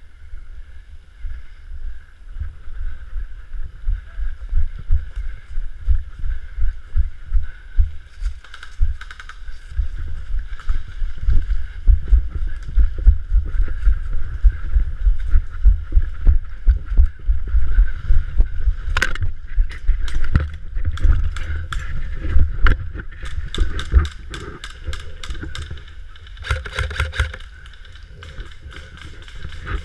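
Muffled, uneven thumping and rubbing from a body-worn action camera moving with its wearer, with a series of sharp clicks in the second half.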